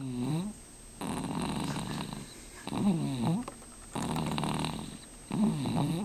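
A dog snoring, about every three seconds: each breath is a rough rattle followed by a wavering, whine-like tone that bends down and up in pitch.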